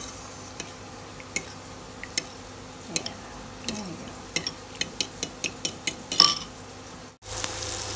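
A metal fork beating egg and milk in a ceramic bowl, clinking against the bowl's side: scattered clicks at first, then a quicker run of clinks and one louder clatter. Near the end it gives way to a steady sizzle of mushrooms frying in a pan.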